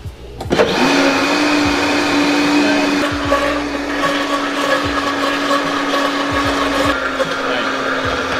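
Countertop blender starting up about half a second in and running steadily with a constant motor hum, blending crepe batter of eggs and milk.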